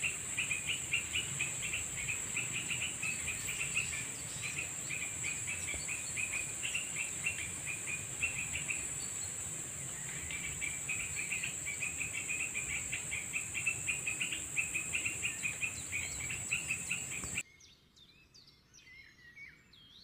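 Tropical forest insects: a steady high-pitched drone with rapid runs of chirping calls over it. About three seconds before the end the sound cuts abruptly to much quieter, leaving a few faint whistle-like calls.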